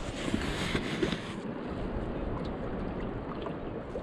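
Wind buffeting the microphone and water lapping against a kayak hull, a steady rushing noise. It is brighter and hissier in the first second and a half.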